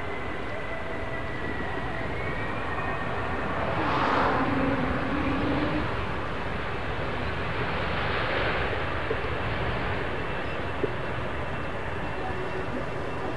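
Turbofan engines of a Middle East Airlines Airbus A321neo running as it lands and rolls out along the runway. The engine noise is steady with a faint high whine and swells louder twice, about four and eight seconds in.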